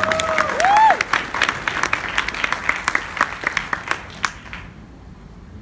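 Audience applauding, a dense patter of claps that fades out after about four and a half seconds, with a rising whoop of cheering in the first second.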